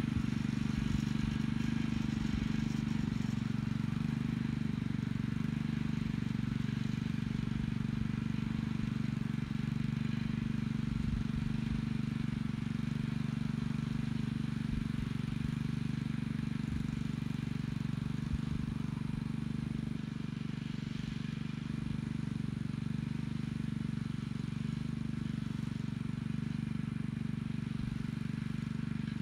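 Small gas engine of an Earthquake mini-cultivator running steadily under load as its hiller attachment throws soil onto a potato row. It drones without a break and slowly grows fainter as the machine moves away.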